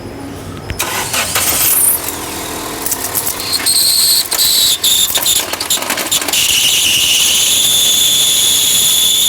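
JAC J6's clutch screaming with the engine running: after a few seconds of rattling and clicking, a loud, piercing high-pitched squeal comes in and settles into a steady whine. The mechanic reads it as a failed clutch release bearing and pressure plate that must have disintegrated.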